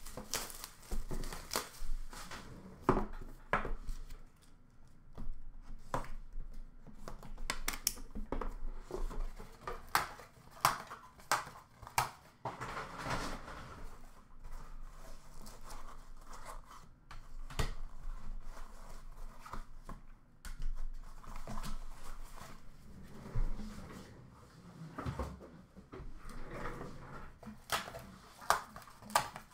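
Hands unwrapping and opening a sealed hockey card hobby box: plastic wrap and cardboard packaging handled, with scattered light clicks, taps and short rustles.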